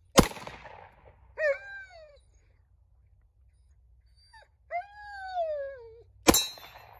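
Two 9mm Glock pistol shots about six seconds apart. Between them a dog howls twice, once briefly and then a longer call that falls in pitch, a dog upset by the gunshots.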